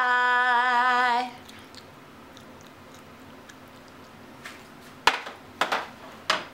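A woman's long, sing-song "bye" held on a wavering pitch, then quiet room tone broken near the end by three sharp knocks as something is handled.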